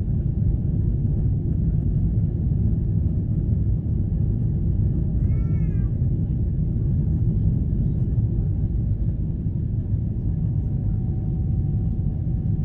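Steady low rumble of cabin noise in a Boeing 777-300ER climbing after takeoff, from its GE90 engines and the air rushing past the fuselage. About five seconds in, a brief high cry that rises and falls is heard over it.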